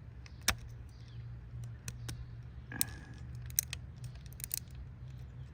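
Sharp plastic clicks as the locking tabs of a worn K24 ignition coil pack connector are pried off by hand, about five or six scattered clicks, over a steady low hum.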